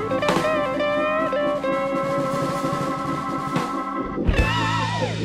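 Background music: a sustained lead guitar line that bends and wavers in pitch, over drums.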